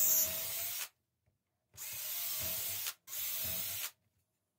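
Drill boring holes through an acrylic (plexiglass) strip: a steady whine from the drill's motor over the hiss of the bit cutting the plastic, in three runs of about a second each. The first stops about a second in, and the next two follow one another a little before the end.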